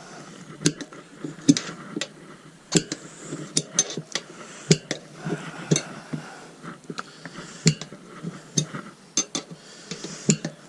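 Tyre levers knocking and scraping against a motorcycle wheel rim as the tyre is levered off by hand: irregular sharp clicks, more than a dozen, with some scraping between them.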